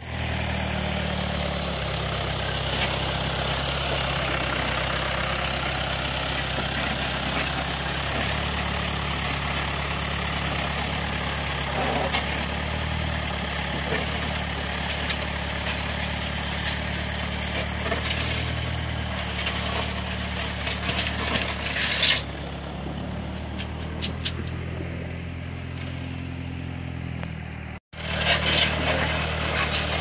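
Farm tractor engine running at a steady speed, a low, even hum that is briefly cut off near the end.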